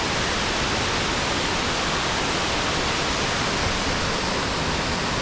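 Waterfall: a steady, loud rush of falling, churning water.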